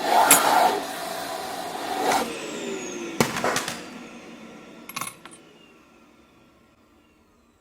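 Car engine sound effect revving in two surges, followed by a falling whine and a few sharp clattering hits about three and five seconds in. Everything then fades away to silence.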